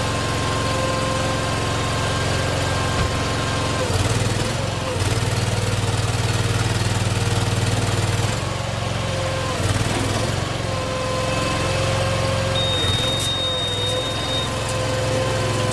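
Small engine of a tracked miniature car-recovery vehicle running steadily while it drives with a car loaded on its deck, growing louder for a few seconds from about four seconds in.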